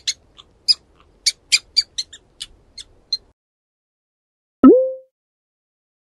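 Mouse squeaking: about a dozen quick, high squeaks over the first three seconds. About four and a half seconds in comes one short, loud blip whose pitch drops fast and then levels off.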